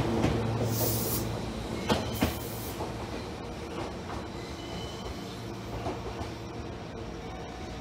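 A Meitetsu 2000 series μSKY electric train pulls away from the platform. Its steady motor hum fades as it leaves, with a few sharp wheel clacks over rail joints about two seconds in, and the running noise tails off as the train recedes.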